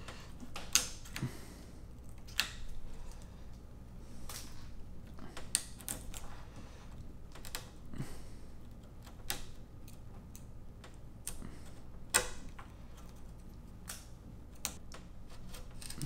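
A wood chisel pushed by hand, paring out the shallow mortise for a door latch plate in the door's edge: irregular small clicks and scrapes as it cuts wood fibres, every second or so.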